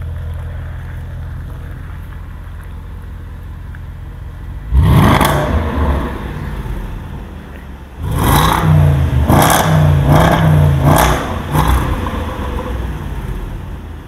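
Range Rover Sport SVR's 5.0-litre supercharged V8 idling, then revved hard once about five seconds in and blipped in a quick series of revs a few seconds later before settling back to idle.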